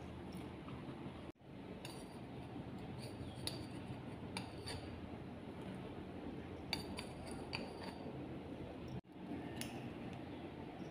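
Light clicks and taps of a spoon and silicone spatula against a plastic mixing bowl as spice powder is added, over a steady low hum. The sound cuts out for an instant twice.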